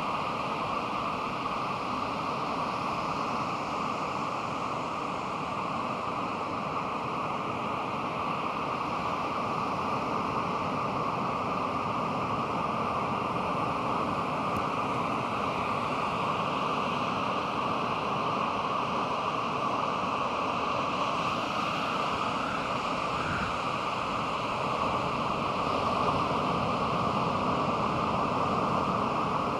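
Pacific Ocean surf breaking and washing in, a steady rush that swells slightly in the last few seconds.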